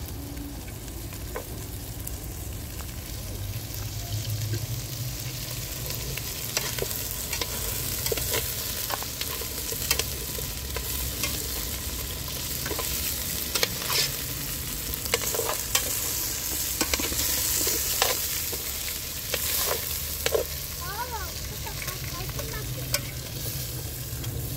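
Pieces of meat frying in oil in a metal pot over a wood fire, a steady sizzle, as they are turned and stirred with a metal spoon, with scattered clicks and knocks against the pot.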